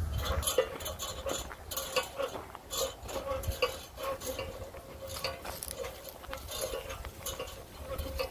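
Footsteps crunching irregularly through dry grass and dead leaves, with a faint steady tone underneath.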